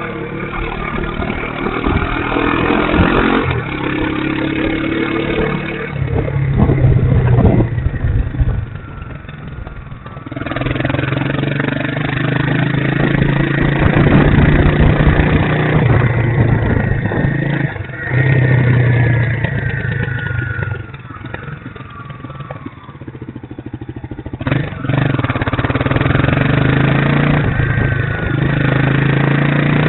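Motorcycle engine running as the bike rides through town. It eases off and quietens twice, about a third of the way in and again a little past the middle, then pulls strongly again.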